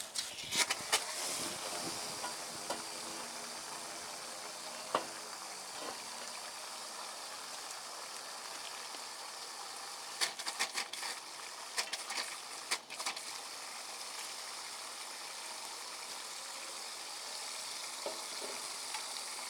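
Water running steadily from a garden hose into a water-filled pipe hole, a continuous hiss, with a few clicks and knocks about a third of the way in and a cluster of them around the middle.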